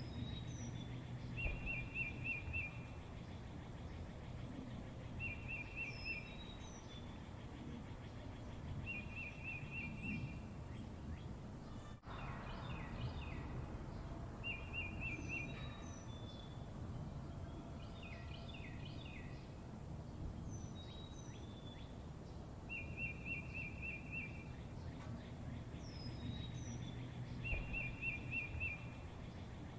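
A songbird singing a short, fast trilled phrase over and over, every three to four seconds, with thin falling high notes and chirps between the phrases, over a steady low hum of outdoor background noise.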